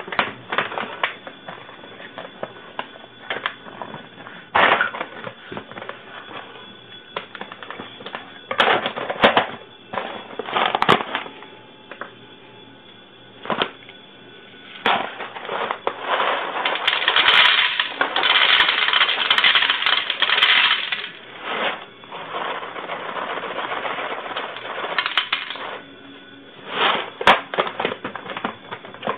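A bag of whole-bean coffee crinkling and rustling as it is handled and opened. About halfway through, the whole roasted beans pour out and rattle into a glass bowl for several seconds, then trail off into scattered clicks of beans.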